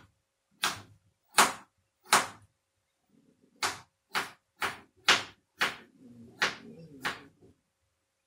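A kitchen knife chopping down onto a cutting board, about a dozen sharp knocks at an uneven pace, dicing Irish potato. There is faint handling noise between the later cuts, and the chopping stops about seven seconds in.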